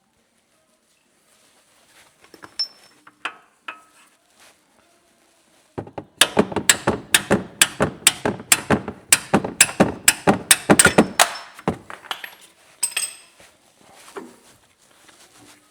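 A hammer striking metal in a fast, even run of about twenty blows, roughly four a second, for about five seconds. Lighter clinks of tools and parts come before and after.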